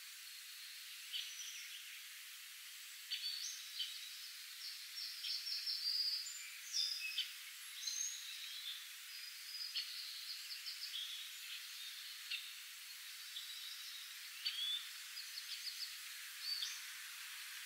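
Several songbirds chirping and trilling, with quick repeated notes throughout, over a steady soft hiss of light spring rain falling on a pond.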